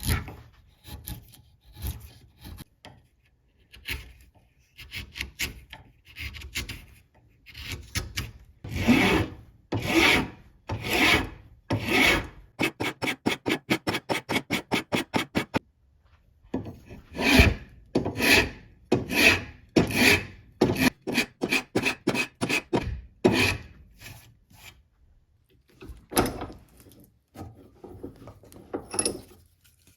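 Hand file scraping back and forth across the steel of a forged machete blade, in uneven runs of strokes with a quick run of short strokes in the middle.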